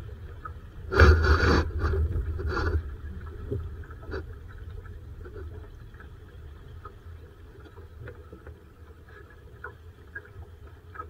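Water and hull noise from a Laser sailing dinghy: a loud rushing, scraping burst about a second in and a shorter one near three seconds, over a steady low rumble that continues after them.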